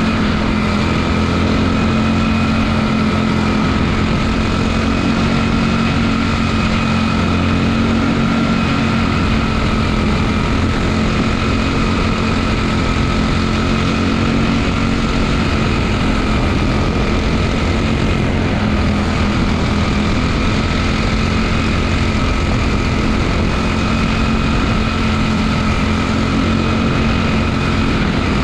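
Quarter midget race car's small single-cylinder engine running at a steady, unchanging speed, heard close up from onboard the car, with other quarter midgets running just ahead.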